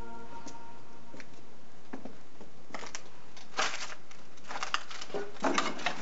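Irregular scuffing footsteps and rustles, with a few louder steps in the second half.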